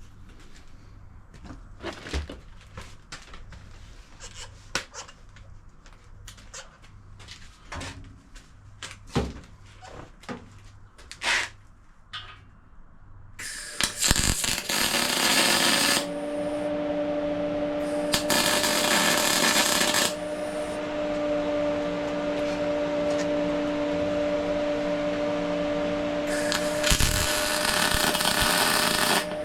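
Steel parts knocked and clicked about as they are set up. From about halfway, a machine hum starts and holds steady, and three loud stretches of hissing, crackling noise of about two seconds each come in over it, typical of welding runs on a steel fixture bracket.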